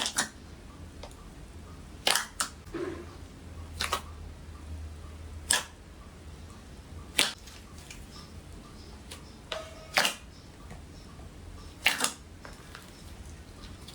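Slime being played with, making sharp pops and clicks about every two seconds.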